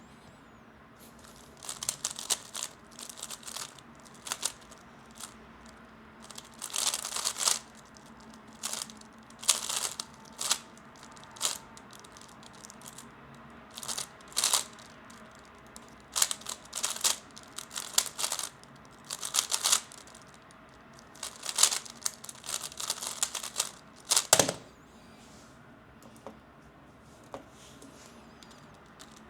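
3x3 Rubik's cube being turned fast in a speed solve: bursts of dry plastic clicking as layers are turned, broken by short pauses. It ends with one sharp knock about 24 seconds in.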